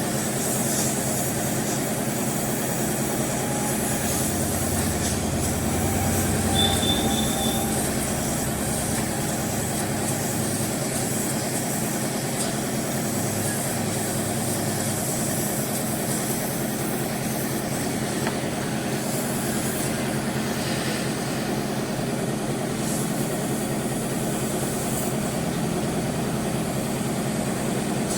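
Steady mechanical running noise with a low hum, unchanging throughout.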